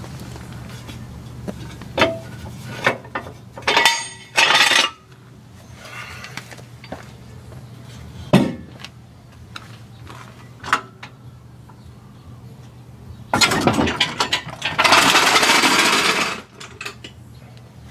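Lug nuts being put on a truck wheel: metal clinks and knocks of nuts and tools, with two longer rattling bursts of nuts being run down, about four seconds in and again near the end. A steady low hum runs underneath.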